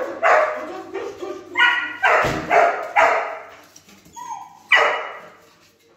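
A golden retriever barking in excited, irregular barks, about five of them, eager for its food at feeding time.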